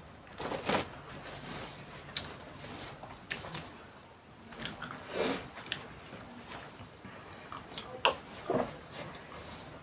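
Close-up eating sounds of 2x Current instant noodles being chewed, with irregular wet smacks and small clicks of biting.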